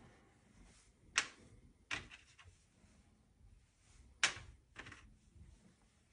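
Pastel sticks clicking against a metal pastel tin as they are picked out: four sharp clicks, in two pairs about three seconds apart.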